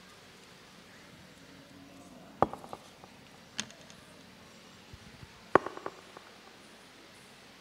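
Handling noise on a microphone: two sharp knocks about three seconds apart, each followed by a quick rattle of smaller clicks, with a single fainter click between them, over faint hall hiss.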